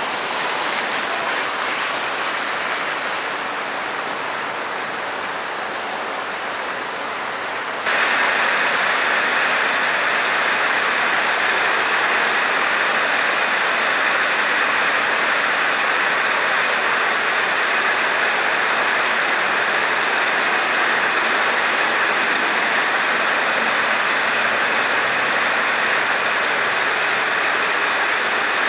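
Steady rain falling on wet pavement and puddles. About eight seconds in, the sound cuts abruptly to a louder, heavier downpour on asphalt that stays steady.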